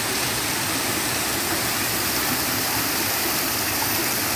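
Water pouring over a small concrete weir in two falls into a bathing pool of a spring-fed river: a steady rushing noise.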